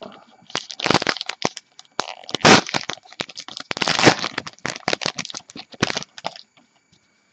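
Plastic wrapper of a 2014 Topps Gypsy Queen baseball card pack being torn open and crinkled by hand: a dense run of sharp crackles, loudest about two and a half and four seconds in, stopping after about six seconds as the cards come out.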